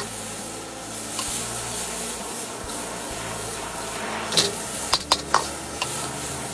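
Stir-fry of termite mushrooms and pork belly sizzling in hot oil in a pan, with soy sauce and oyster sauce just added. A handful of sharp clicks of stirring come in the second half.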